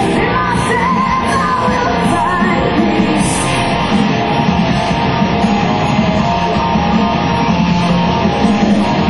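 Live heavy rock band playing at full volume: distorted electric guitars, bass and drums, with a woman singing over them. Cymbal strikes sound regularly in the first three seconds or so, then drop away.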